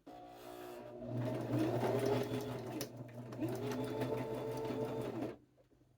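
Electric sewing machine stitching through fabric: the motor starts, picks up speed about a second in, runs steadily, then stops shortly before the end.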